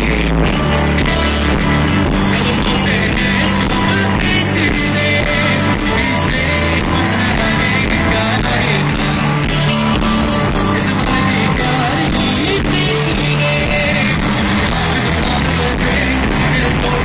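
Live band playing loudly over a PA system: a singer over electric guitar and drums, with steady drum hits throughout.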